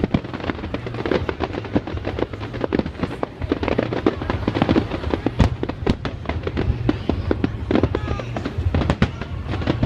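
Fireworks display: a rapid, unbroken string of sharp bangs and crackles from many shells bursting, several a second, over a steady low rumble.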